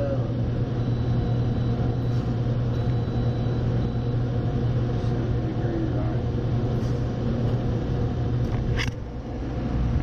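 Steady low hum of running machinery, with a sharp knock and a brief dip in level about nine seconds in, as the camera is handled.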